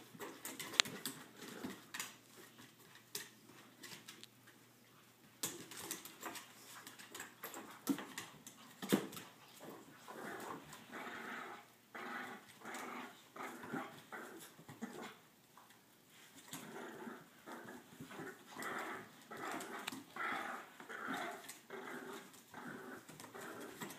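French bulldogs playing tug of war with a leash, growling in short repeated growls that come thick and fast from about halfway through. Sharp clicks and knocks are scattered through the first half.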